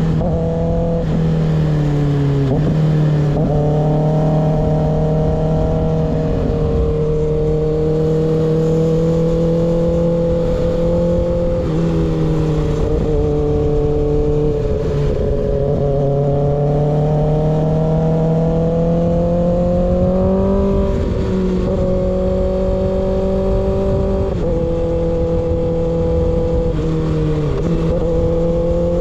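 Kawasaki ZX6R inline-four with an unbaffled M4 GP19 slip-on exhaust, running steadily at mid revs while riding. The engine note dips briefly about a second in, again a little later and near the end, and otherwise rises and falls slowly with the throttle. A low rush of wind runs underneath.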